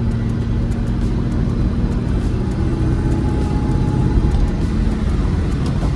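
Rover SD1 Vitesse's V8 running on the move with steady road rumble and a faint whine. The owner first took the whine for the differential but puts it down to the front left tyre.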